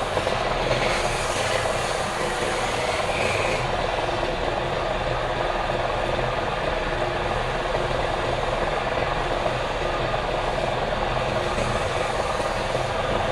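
Wood lathe running steadily, its motor and spinning work making an even mechanical noise.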